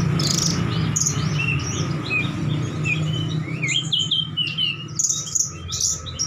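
Small birds chirping and twittering, many quick rising and falling chirps, busier in the second half, over a steady low hum.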